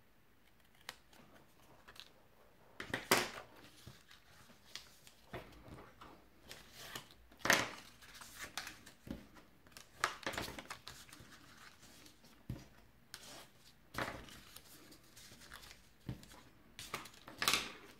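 Scissors snipping into cardstock, with paper rustling as it is handled, in a string of short, quiet sounds; a few snips or handling noises stand out louder.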